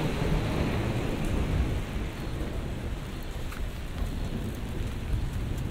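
Steady rain on wet city pavement, with a few faint drop ticks from an umbrella overhead and a low rumble underneath.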